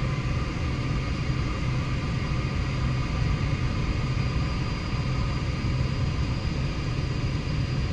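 Steady engine drone with a low hum and rumble, unchanging throughout, like the inside of a moving vehicle.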